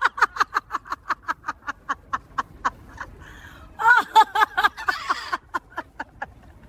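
Parrot giving a quick run of short, high chirps, about six a second, each dropping in pitch. After a brief pause, a louder burst of calls follows about four seconds in.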